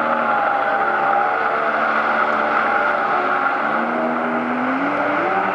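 Jet ski engine running at speed with a steady whine over the hiss of its spray; the engine note rises in pitch about two-thirds of the way through as it sweeps close by.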